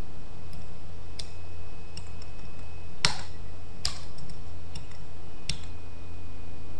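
About half a dozen scattered clicks of a computer mouse, the loudest about three seconds in, over a steady hum.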